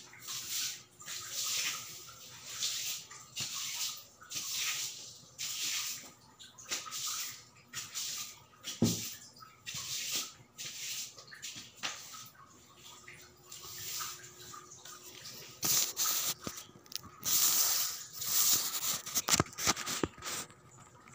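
Rhythmic swishing strokes of a hand brush worked against a surface, roughly one a second, growing louder and closer together in the last few seconds.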